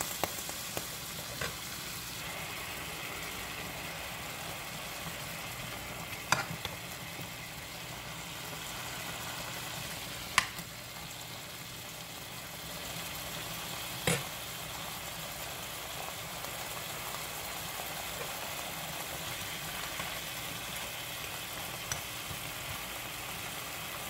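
Slices of smoked picnic ham sizzling steadily in a hot pan greased with cooking spray, with a few short sharp clicks of a metal fork against the pan as the slices are poked and turned.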